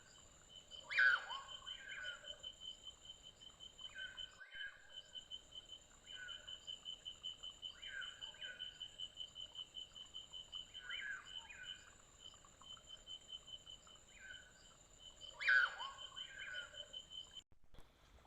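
Short two-note bird calls, repeated every couple of seconds and louder twice (about a second in and near the end), over a steady, fast-pulsing high insect chirring in the forest. The sound cuts off abruptly just before the end.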